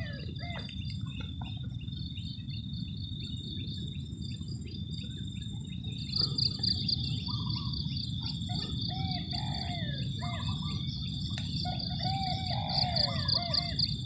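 Wild birds chirping and calling in short, curving notes, over the steady high buzz of insects; a pulsing insect trill joins about six seconds in, with a low rumble of wind or handling noise underneath.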